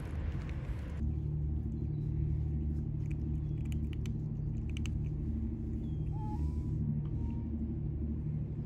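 A cat purring steadily close to the microphone, a low even rumble. A brief faint high call is heard about six seconds in.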